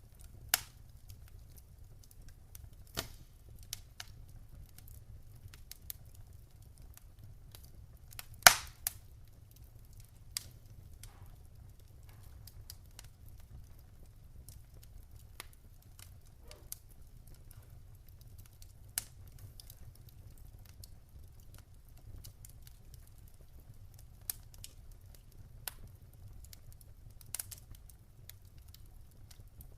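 Wood fire burning in a fireplace: irregular sharp crackles and pops from the burning logs, the loudest pop about eight seconds in, over a low steady rumble.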